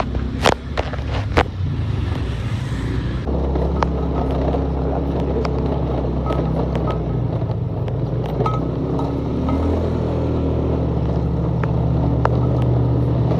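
Motorcycle engine running steadily while riding, with a few sharp knocks in the first second and a half. The engine note shifts about three seconds in.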